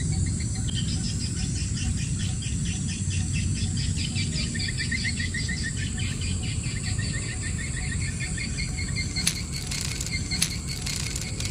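Insects chirping in fast, pulsing trills over a low, steady outdoor rumble, with a few sharp clicks near the end.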